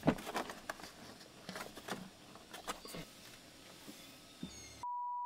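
Plastic trim panels of a car's center console clicking and knocking as they are handled and pressed into place, a run of sharp clicks in the first three seconds, the loudest right at the start. Near the end the sound cuts to a single steady high censor bleep.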